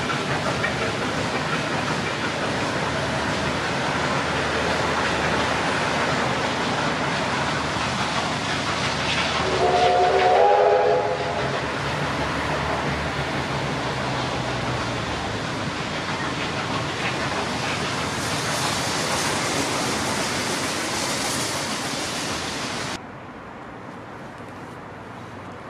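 Heritage train of wooden passenger carriages rolling over a rail bridge, a steady rumble of wheels and running gear. About ten seconds in, a steam locomotive's whistle sounds for a little over a second, the loudest thing here. Near the end the sound drops suddenly to a quieter background.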